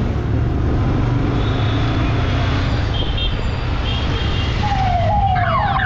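Ridden motorcycle's engine and street traffic, a steady low rumble. Near the end a siren starts up, its pitch rising and snapping back down about every half second.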